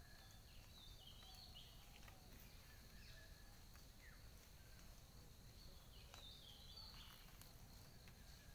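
Faint scattered bird chirps and short whistles, some gliding in pitch, over a low steady rumble and a thin high steady tone.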